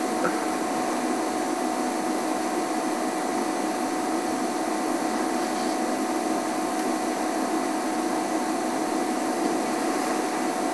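Steady, unchanging hiss with a faint constant high tone under it, and no distinct events.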